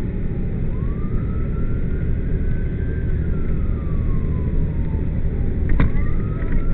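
Fire apparatus siren on a slow wail, its pitch rising and falling over about five seconds, over the low rumble of the truck's engine and road noise. A sharp click comes near the end.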